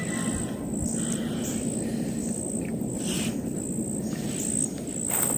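Insects chirping in a high, pulsing chorus over a steady background hiss.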